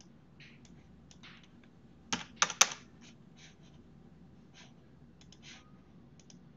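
Keystrokes on a computer keyboard: scattered light key clicks, with a quick run of three or four louder keystrokes about two seconds in.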